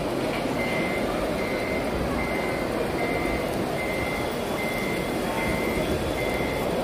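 Reversing beeper of a radio-controlled model construction vehicle's sound module: a high, steady beep repeating a little faster than once a second.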